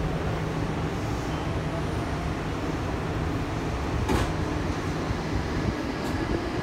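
Meitetsu 100 series electric train heard from inside the car: a steady hum while it stands with the doors shut, a sharp click about four seconds in, then the train starts to pull away.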